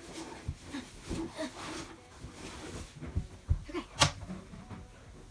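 Scattered thumps and knocks of hands, knees and feet on a hardwood floor, with one sharp slap about four seconds in.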